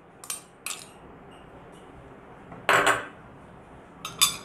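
Kitchenware clatter: a couple of light clicks, then a louder knock about two and a half seconds in, and a ringing clink of a dish or utensil near the end.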